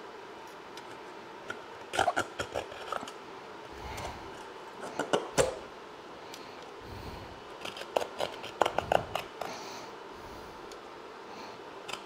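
Hand deburring tool scraping along the cut edge of a sheet-metal patch panel, taking off the sharp burrs in short bursts of quick rasping strokes, with pauses between them.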